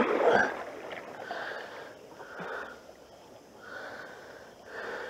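Canoe paddle strokes in creek water: a soft swish repeating about once a second, with a louder knock at the very start.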